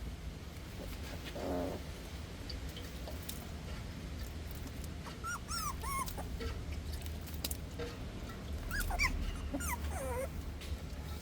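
Puppies whining in thin, high-pitched squeaks that rise and fall: one lower call about a second and a half in, then a few squeaks around the middle and again near the end, over a steady low hum.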